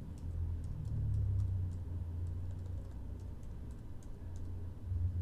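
Close-miked computer keyboard typing: scattered, irregular keystrokes clicking, with a steady low rumble underneath.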